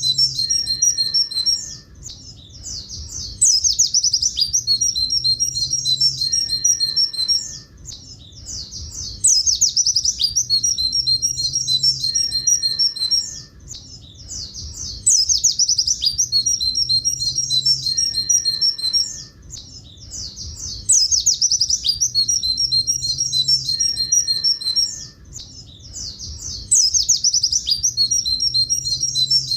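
A pleci buxtoni white-eye sings its high, twittering "tulit tulit" song. The same long phrase repeats about every six seconds, with short quieter gaps between.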